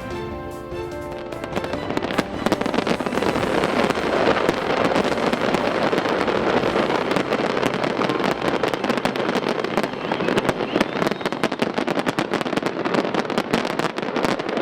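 Closing music fading under dense fireworks crackling and popping, which builds up about two seconds in and carries on loudly.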